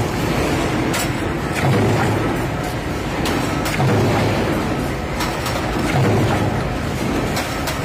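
Stamping press running a transfer die. A steady machine hum swells about every two seconds with each stroke, and sharp metallic clicks come in between.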